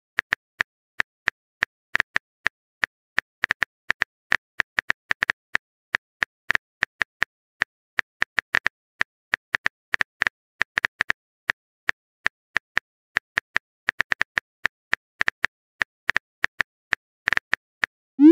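Texting-app keyboard typing sound effect: short, sharp tap clicks at an uneven pace, several a second, as a message is typed out. A rising pop starts right at the end, as the message is sent.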